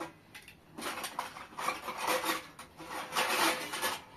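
Household things being rummaged through and shifted about in a wall niche: a run of rubbing and scraping sounds, loudest near the end.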